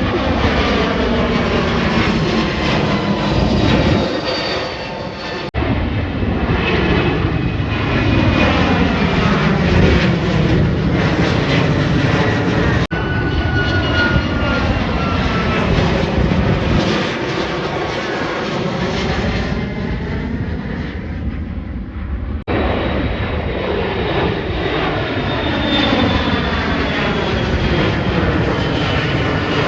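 Jet airliner's engines passing low overhead, loud, with a whooshing that sweeps up and down in pitch as the plane moves across. The sound breaks off and resumes abruptly three times.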